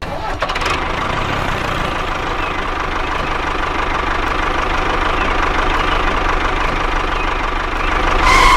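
An engine running steadily with a knocking rattle, growing a little louder near the end.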